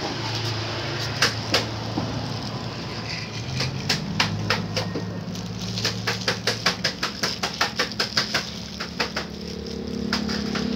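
Plastic toys knocking and clicking on a wooden board: scattered sharp taps, then a quick run of about four a second past the middle. A low steady hum runs underneath and grows louder near the end.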